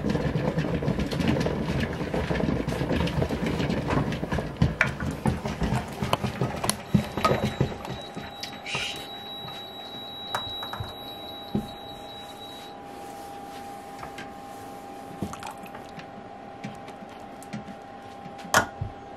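Hot glass canning jars being lifted out of a water-bath canner with a metal jar lifter and set down on a towel-covered wooden bench: scattered clicks and knocks of metal tongs against glass and jars against wood. A dense rushing noise fills the first several seconds and then drops away, leaving a faint steady hum under the clicks.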